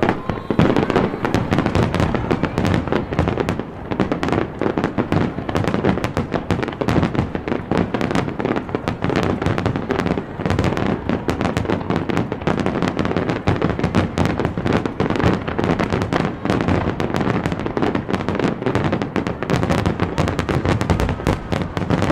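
Aerial fireworks going off in a rapid, unbroken barrage of bursts and crackles, many a second, starting abruptly.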